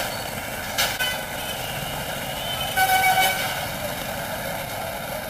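Busy street noise with a short vehicle horn honk about three seconds in, and a sharp knock a little under a second in.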